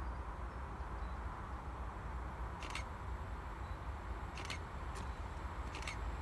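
Class 66 diesel-electric freight locomotive approaching from far off, heard as a faint, steady low rumble. Four short, sharp high clicks come through it.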